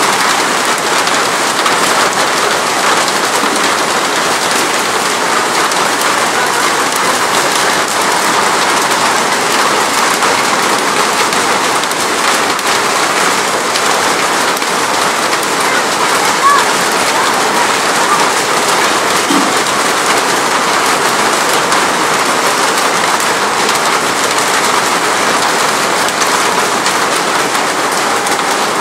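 Heavy hail falling on wet pavement, a dense, steady noise of countless small impacts that keeps up without letting off.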